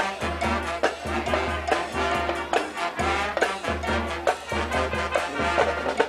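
High school marching band playing, brass chords over a steady, driving drum beat.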